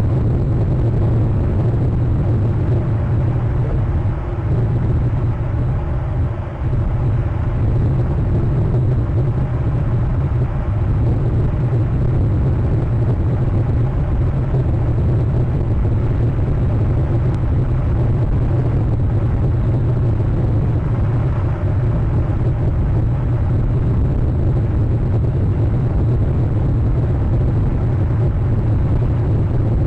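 Steady low rumble with an even hiss over it, picked up by an outdoor nest camera's microphone.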